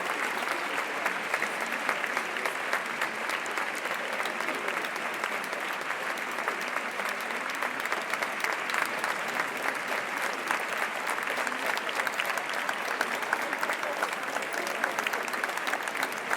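Crowd applauding: many hands clapping in a dense, steady patter that neither swells nor fades.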